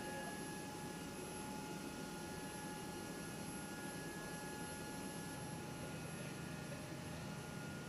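Steady aircraft machinery drone with several thin, steady whining tones, heard inside a C-5 Galaxy's cargo hold. A deeper hum grows stronger about five seconds in.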